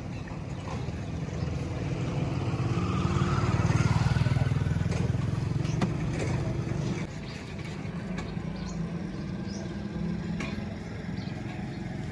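Street traffic: a motor vehicle's engine rumbles past close by, swelling to its loudest a few seconds in and then falling away, with a few sharp clicks over it.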